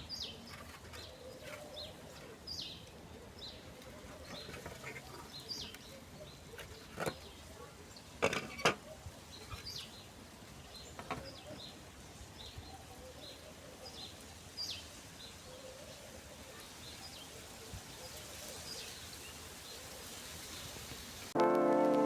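Small birds chirping with short, high calls over a faint steady background hiss, with a few sharp knocks about eight seconds in. Music starts near the end.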